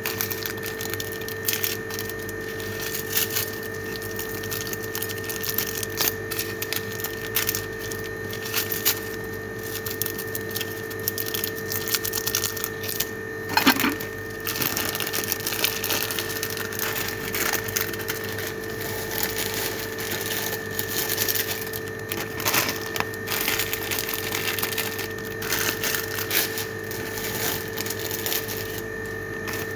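Plastic instant-noodle packets being handled, crinkling and crackling in irregular bursts with one louder crack about halfway through. A steady two-tone hum runs underneath.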